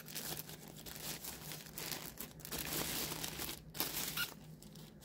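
Thin plastic bag rustling and crinkling in irregular handfuls as a handheld thermal camera is pulled out of it. The crinkling dies away near the end.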